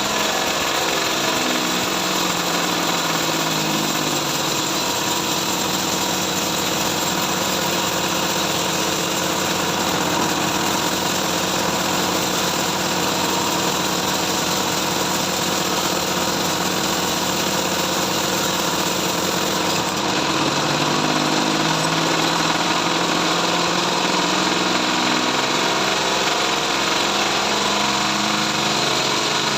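Bandsaw mill running, sawing trembesi (rain tree) wood, with a steady mechanical drone whose pitch wavers up and down. Its tone shifts about twenty seconds in.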